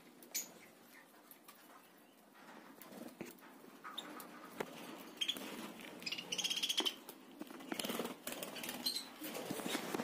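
Budgerigars chirping and chattering, with scattered sharp clicks and rustles of beaks pecking at fresh mint leaves; a louder, longer call stands out about six and a half seconds in.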